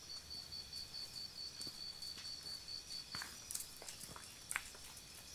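Faint footsteps of a man and a dog on a pebble-strewn track, heard as scattered small clicks and crunches. An insect's steady, pulsing high chirp carries on through the first three seconds or so, then stops.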